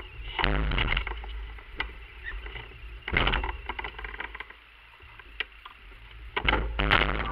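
Rustling and scraping of a jacket against a close, worn camera, with scattered knocks and clicks over a low rumble as the wearer moves. There are louder bursts about half a second in, around three seconds in and near the end.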